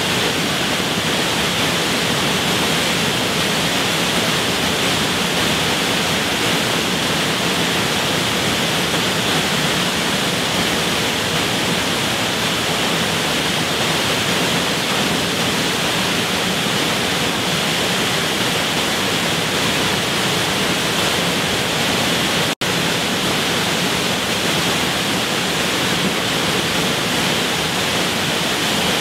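Highland waterfall: a steady rush of falling water, with a split-second break in the sound about three-quarters of the way through.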